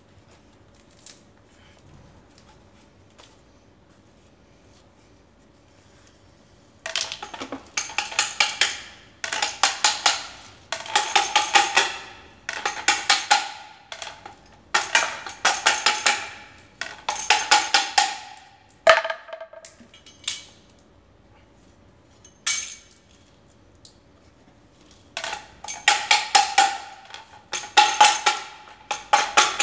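Suzuki TL1000R front fork tubes being slid and knocked against each other, slide-hammer style, while its leaking oil seal is replaced. The result is bursts of rapid, ringing metallic clacks about a second long, starting about seven seconds in. There are six bursts, then a gap of several seconds, then two more.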